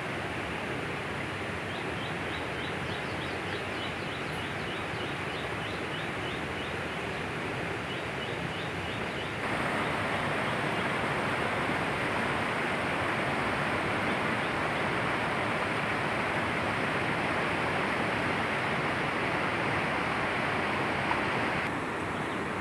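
Steady rushing noise of a river running over rocks, suddenly louder about nine seconds in. A faint run of quick high chirps sounds over the first part.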